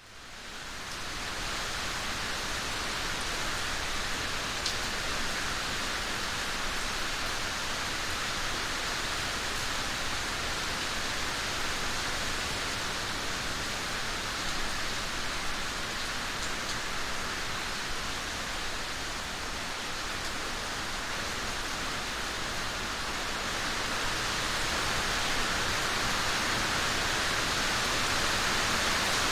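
Steady rain, an even hiss of falling water that fades in over the first second.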